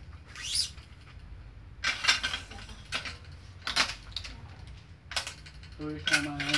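Badminton racket being strung on a stringing machine, one string pulled at a time: a quick swish of string drawn through the frame, then a series of sharp clicks and knocks from the clamps and tension head, about a second apart.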